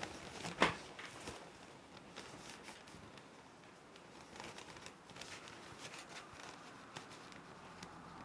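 Soft, intermittent rustling and crinkling of a stiffly starched cotton headscarf being folded and tied over a woman's head, with one sharp click about half a second in.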